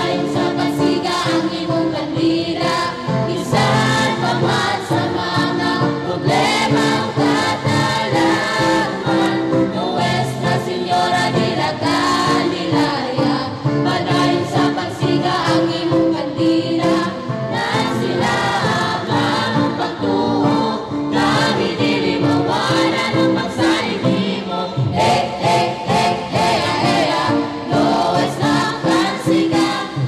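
A choir singing a hymn over instrumental backing with a steady beat.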